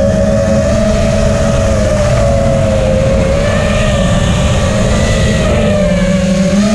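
Eachine Wizard X220 quadcopter's brushless motors whining in flight, a steady whine that wavers slightly with throttle and rises again near the end.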